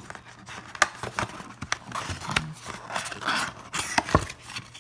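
A cardboard trading-card blaster box being opened by hand: several sharp clicks and knocks, with scraping and rustling as the flap is torn open and the card packs are slid out.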